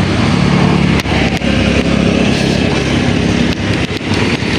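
A motorcycle engine running steadily amid road traffic noise, with a few sharp clicks or knocks.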